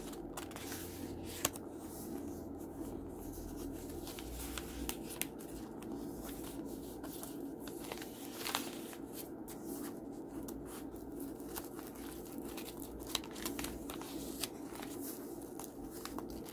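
Pages of a handmade junk journal being turned and handled: paper rustling and crinkling, with scattered small taps and ticks, over a steady low hum.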